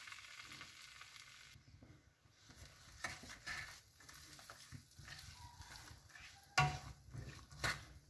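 Wooden spatula stirring dried fruit, butter, sugar and tea in a non-stick wok, with a faint sizzle at first that drops away. Short scraping strokes of the spatula follow from about three seconds in, the loudest two near the end.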